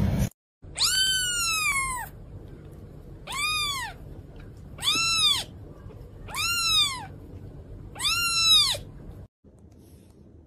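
A small kitten meowing five times: thin, high mews that each rise and fall in pitch, the first longer and drawn out, the other four short.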